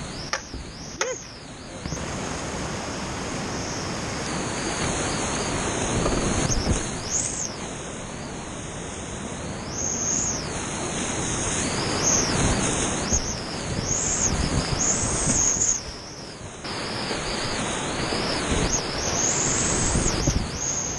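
Whitewater rapids rushing and splashing around a kayak as it paddles out and runs down a drop, heard close up on a helmet-mounted camera; a couple of knocks about a second in, and the rush surges and eases as the boat moves through the water.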